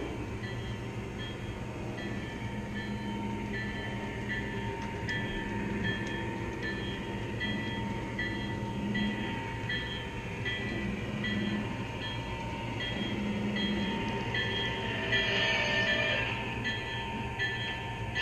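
O-scale model trains running on three-rail track: a steady motor and wheel rumble with a regular clicking about twice a second. It swells louder about fifteen seconds in as a model diesel locomotive comes out of the tunnel.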